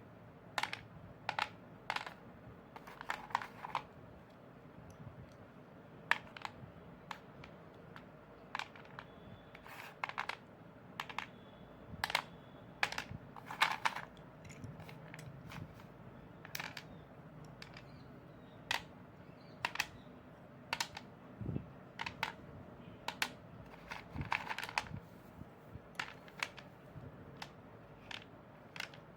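Chalk being crunched: sharp, irregular crunches and snaps, some in quick clusters of two to four, with short pauses between.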